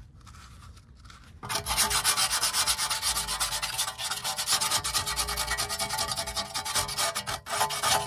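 Sandpaper rubbed by hand over the rusty steel brake backing plate of a Mercedes C230's rear wheel, scratching in rapid back-and-forth strokes that start about a second and a half in and keep going.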